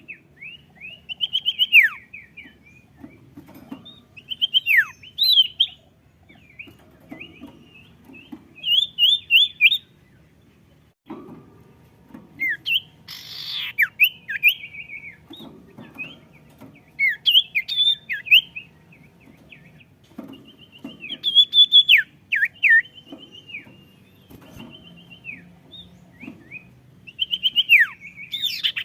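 Sirtu songbird singing vigorously: repeated short bursts of rapid chirps, trills and sharply down-slurred whistles, coming every couple of seconds with brief pauses between phrases, over a faint low background hum.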